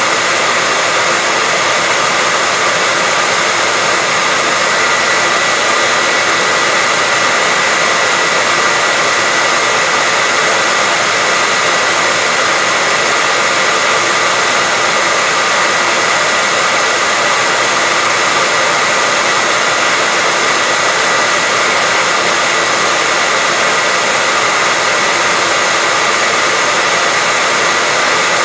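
Hair dryer running continuously on one setting, a steady rushing of air with a thin whine held near one pitch, unchanging throughout.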